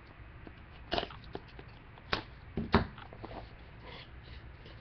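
A small cardboard trading-card box being cut open with a box cutter and its inner tray slid out: about four short, sharp knocks and scrapes of cardboard, two of them close together in the second half.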